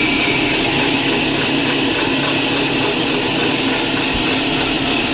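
An electric woodworking power tool running steadily at constant speed, a loud, even whirring noise.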